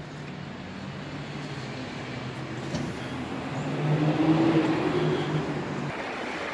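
Street traffic: a motor vehicle's engine hum that grows louder as it passes, loudest about four to five seconds in, then drops away near the end.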